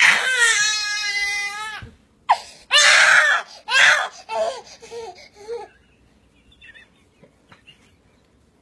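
Baby crying: a long loud wail, then shorter sobbing cries that fade into whimpers and stop about six seconds in.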